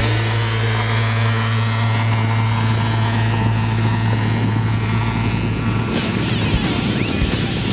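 Portable thermal fogger's pulse-jet engine running at a steady pitch, a loud continuous drone, while it pumps out insecticide fog. The steady tone drops away about six seconds in.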